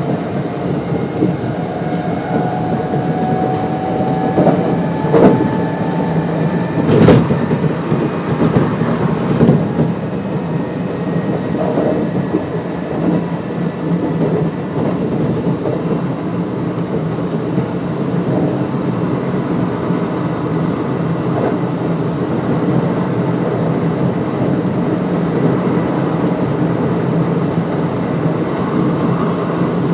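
Kintetsu 1259-series electric train running, its Hitachi GTO-VVVF inverter whining in rising tones for the first few seconds. The whine then fades into steady rolling noise with wheel clacks, one sharp clack about seven seconds in.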